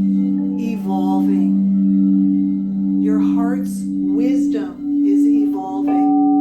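Singing bowls ringing: two steady low tones held together, the upper one swelling and fading about once a second as the bowl is played.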